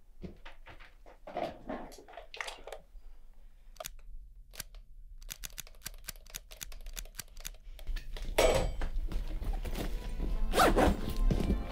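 Faint clicks and rustling of objects being handled in a box, then film score music comes in about eight seconds in and grows louder.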